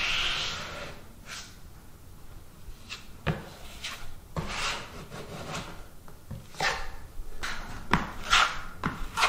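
Steel drywall taping knife scraping joint compound along a ceiling butt seam, in short strokes about once a second. Now and then the blade knocks lightly against the board.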